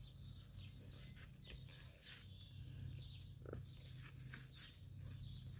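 Faint sounds of a mule moving on soft dirt: scattered soft hoof steps over a steady low rumble, with one short, louder sound about three and a half seconds in.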